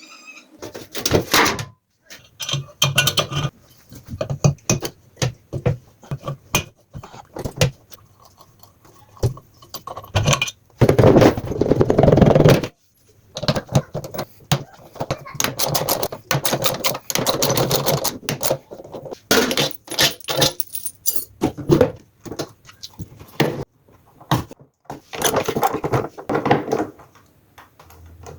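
Metal parts and tools clattering, knocking and scraping as an LG top-load washing machine is taken apart to get at the drum: rapid runs of clicks and rattles, with a longer, louder scraping stretch near the middle.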